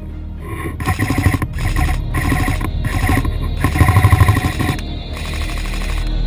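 Airsoft electric gun firing in several bursts, a rapid mechanical buzz of the gearbox cycling with short breaks between bursts, from about a second in until nearly five seconds in.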